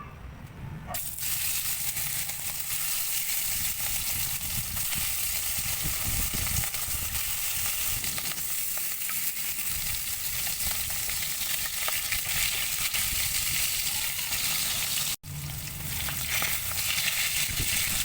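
Food sizzling and crackling as it fries in hot oil in a pan, starting about a second in and running steadily, with a momentary break near the end.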